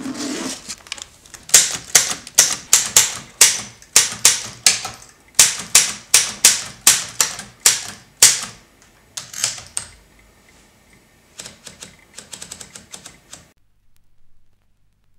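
Manual typewriter being typed on: about sixteen sharp keystrokes at an uneven pace, after a muffled handling sound at the start. Near the end comes a fainter, quicker run of clicks, and then it stops.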